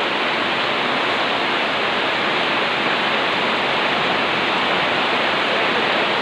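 Heavy rain falling steadily, an even wash of noise with no breaks.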